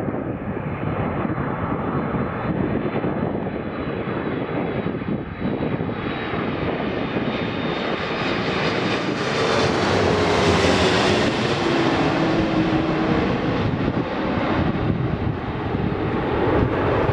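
Airbus A330-300 twin-jet airliner on landing approach with gear down, passing low overhead: a steady engine rumble and rushing noise that swells to its loudest about ten seconds in, with a whine that drops in pitch as it goes over, then eases as it moves away.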